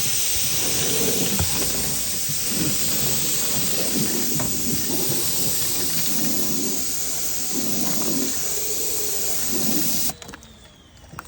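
Pressure washer spraying water through an undercarriage washer attachment: a loud, steady hiss of water jets hitting the underside of a car, stopping suddenly about ten seconds in.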